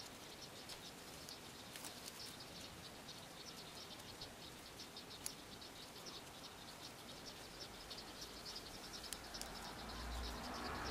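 Faint, quick crackling ticks of paper yarn rubbing and catching on a crochet hook as single-crochet stitches are worked. A low rumble comes in near the end.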